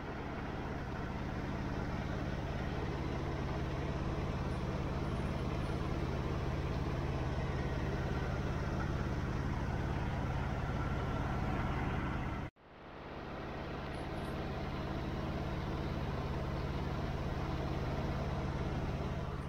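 Diesel semi-truck engine idling: a steady low rumbling hum that briefly drops out about twelve and a half seconds in, then comes back.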